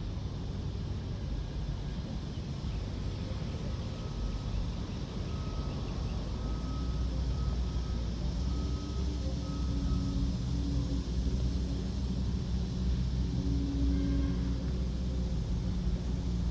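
A motor vehicle's engine running as a steady low hum, growing a little louder about halfway through.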